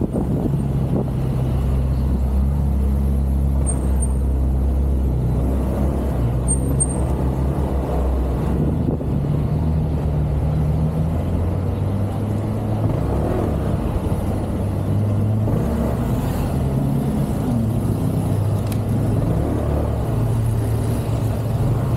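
Motorcycle engine running while riding, a low steady note that shifts up and down a few times as the throttle changes, over road and wind noise.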